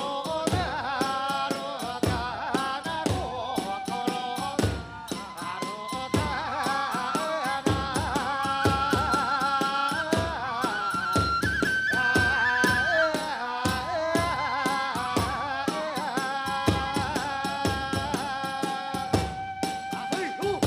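Kagura hayashi: a high bamboo flute playing an ornamented, sliding melody over steady drum beats and clashing small hand cymbals.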